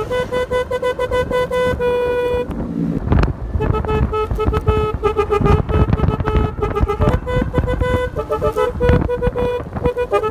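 Basuri telolet horn on a motorcycle playing a tune of short held horn notes over low engine and road noise. The melody breaks off briefly a little over two seconds in, then resumes with quicker note changes.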